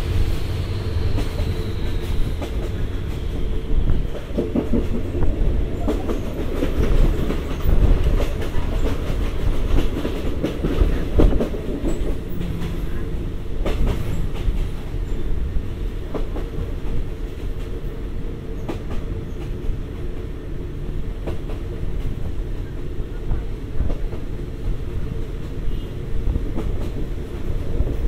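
Passenger train on the State Railway of Thailand running along the track: a steady rumble of wheels on rail with scattered clicks as the wheels cross rail joints, heard from inside the carriage.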